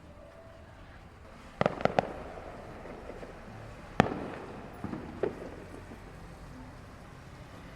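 Fireworks exploding: three quick cracks about a second and a half in, then the loudest single bang a couple of seconds later, followed by two fainter pops. Each blast leaves an echoing tail.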